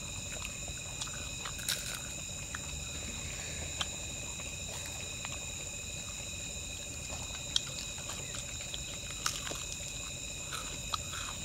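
Steady high-pitched chorus of night insects, with scattered small clicks and smacks of people eating fried food with their hands.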